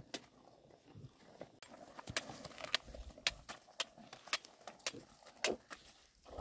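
Crisp crunching of raw bamboo shoots, a string of sharp clicks about twice a second that grows stronger about two seconds in.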